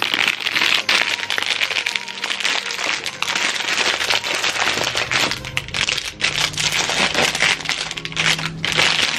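Clear plastic packaging bag crinkling and rustling as it is handled and opened.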